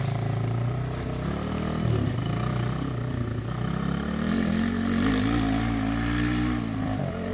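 Off-road vehicle's engine under throttle, climbing a steep straight hill. Its pitch wavers, rises about halfway through, then drops near the end as the rider lets off the throttle.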